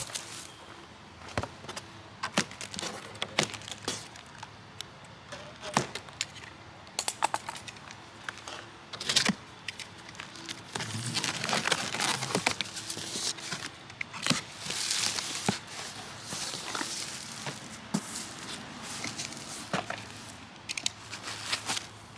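A cardboard shipping box being opened and its packing unpacked. Irregular clicks and cracks mix with crinkling and tearing of wrapping, with longer stretches of rustling about eleven and fifteen seconds in.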